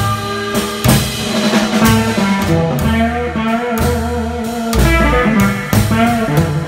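Live small-band music: an electric guitar picking a melody over a plucked upright bass and a drum kit keeping a steady beat.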